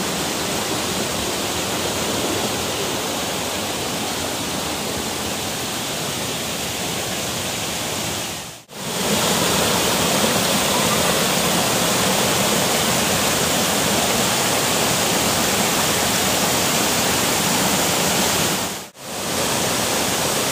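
Rushing water of a jungle waterfall and the rocky stream below it, a steady hiss. The sound cuts out briefly about eight seconds in and again near the end, and after the first break it comes back a little louder.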